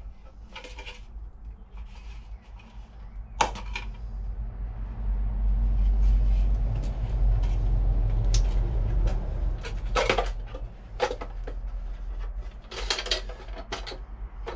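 Irregular plastic clicks and knocks from a waterproof outdoor double plug socket being handled and fitted in place. A low rumble swells under them through the middle.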